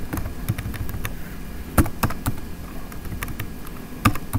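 Slow, irregular computer keyboard key presses, a handful of separate clicks, over a steady low background rumble.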